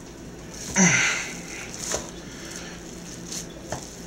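Raw ground beef being scooped by hand and pressed into a metal loaf pan, with soft squishing and a few small knocks. About a second in comes a short breathy vocal sound, falling in pitch, from the cook.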